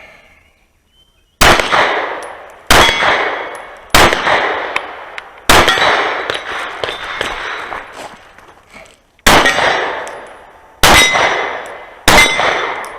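Seven pistol shots from a Sig Sauer P320 Carry on a timed string, each with the ringing clang of a steel target being hit. The first four come about 1.3 s apart, then there is a pause of nearly four seconds before the last three.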